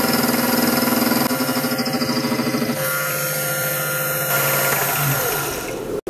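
Mini mill spindle motor running steadily while an end mill takes a final finishing pass, milling a flat onto a round steel rod. Near the end the spindle is switched off and winds down with a falling pitch.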